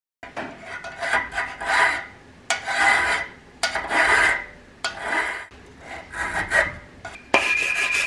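Hand file rasping across a small machined steel part held in a bench vise, in about eight slow strokes, roughly one a second, deburring and cleaning up the freshly turned piece. The last stroke, near the end, rings with a steady high tone.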